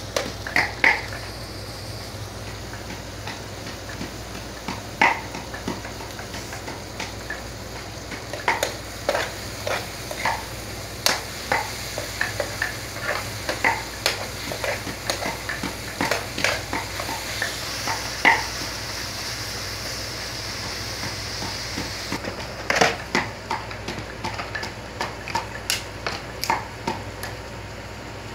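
Metal spoon stirring sliced onions and green chillies in a frying pan, clinking and scraping against the pan at irregular moments over a steady sizzle.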